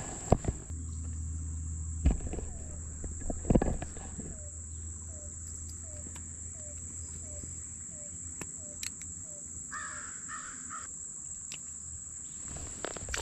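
Steady high insect buzz, with a soft call repeated about twice a second for several seconds and three harsh calls about ten seconds in. A few knocks and bumps in the first four seconds.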